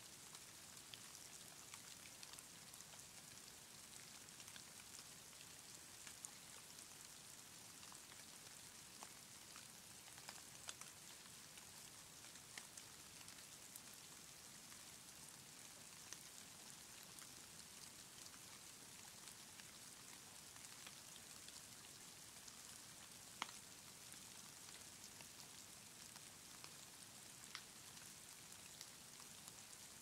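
Very faint steady hiss of falling snow, scattered with light irregular ticks of flakes landing on surfaces, one sharper tick about twenty-three seconds in.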